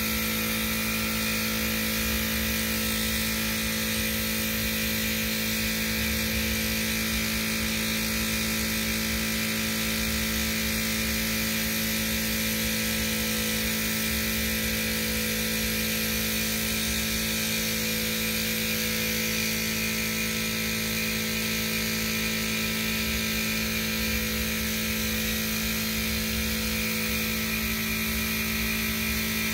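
Air compressor running steadily with a droning motor hum, under the high hiss of compressed air through a gravity-feed paint spray gun during spraying.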